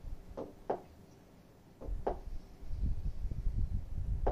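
A few light clicks or knocks, then a low, uneven rumble starting about two seconds in: handling noise from equipment being fiddled with during a technical problem.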